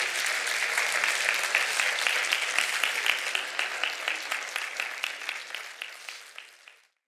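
Audience applauding, dense steady clapping that fades gradually away over the last few seconds and stops just before the end.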